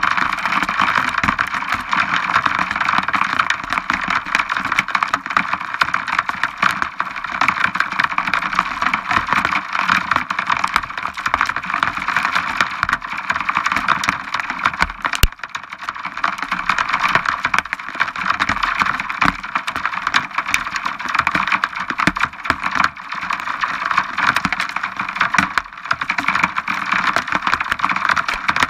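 Heavy rain from a supercell thunderstorm pattering steadily, a dense hiss of countless small drop impacts. A single sharp click stands out about fifteen seconds in.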